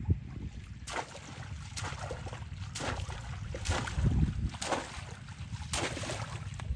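Water splashing and sloshing in shallow water in short strokes about once a second, over a steady low rumble.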